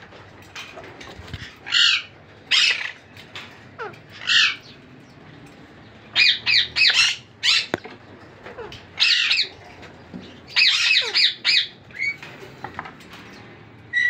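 Alexandrine parakeet squawking: about a dozen loud, harsh calls, some single and some in quick runs of three or four, with quieter spells between.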